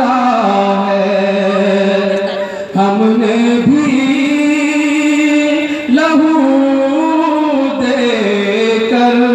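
A solo man's voice sings a naat into a microphone in long, held notes that slide and ornament between pitches, with short breaths about three and six seconds in.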